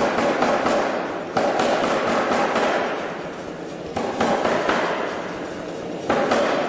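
Anyang 25 kg self-contained air hammer pounding a hot bar between its dies in quick runs of blows, several a second. A fresh, louder run starts about a second and a half in, another at about four seconds, and another near the end.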